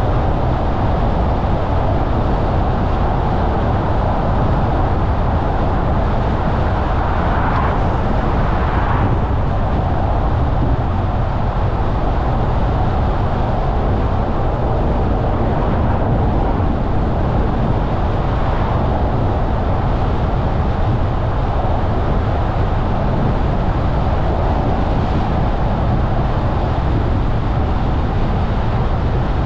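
A car being driven along a road: steady tyre and engine rumble, with a brief louder rush about eight seconds in and a weaker one around eighteen seconds.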